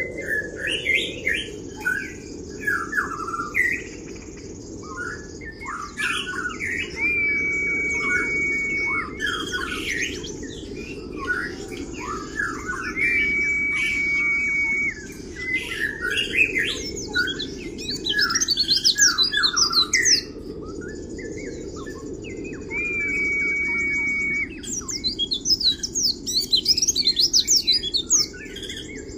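A caged white-eye (pleci) singing in the fast, chattering kriwik style: quick twittering chirps broken by three long steady whistles, with two stretches of very rapid high trills, the loudest parts, about two-thirds in and near the end. A low background rumble swells and fades underneath.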